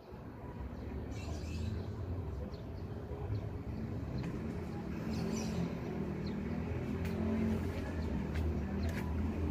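A motor vehicle engine running, a low steady rumble that grows louder over the first couple of seconds and then holds.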